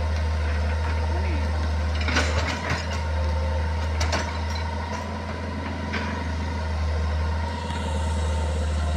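Hitachi hydraulic excavator's diesel engine running steadily with a steady whine as the bucket digs out tree roots, with a few sharp knocks and cracks about two, four and six seconds in.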